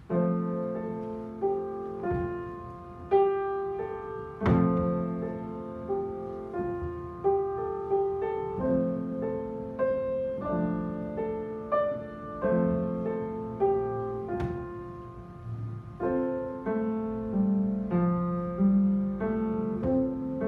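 Upright piano played solo: a steady melody of single struck notes over lower notes, each note ringing and fading before the next. Two notes struck sharper and louder stand out, about four seconds in and again about fourteen seconds in.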